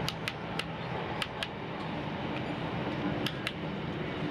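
Inside a Class 156 diesel multiple unit on the move: a steady low hum from the train under a noise of running over the track, broken by sharp clicks of the wheels over the rails, several of them in quick pairs.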